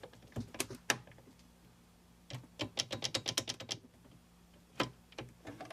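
A mini milling machine's depth handle and crank being worked by hand: a few light clicks, then a quick run of clicks, about eight a second, for a second or so, then another single click.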